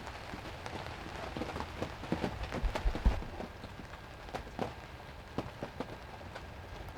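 Rain falling steadily, with large drops landing close by in irregular sharp taps. A couple of low thumps come about three seconds in.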